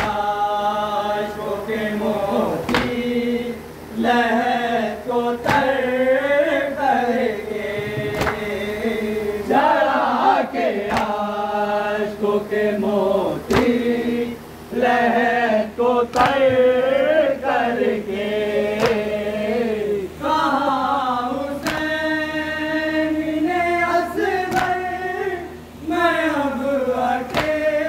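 A group of men chanting a purdard noha, a Shia lament for Imam Hussain, into a microphone, in long wavering lines with short breaks between phrases. Sharp slaps come every few seconds from mourners beating their chests (matam).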